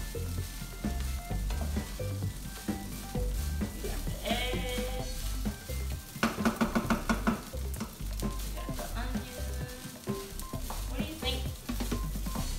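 Vegetable fried rice sizzling in a frying pan while it is stirred and scraped with a wooden spatula, with a quick run of spatula knocks against the pan about six seconds in. Background music plays underneath.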